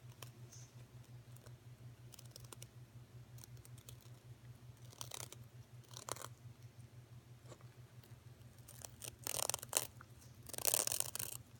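A cockatoo crunching pieces of Hot Fries snack in its beak: scattered crackly crunches, growing longer and louder near the end. A steady low hum runs underneath.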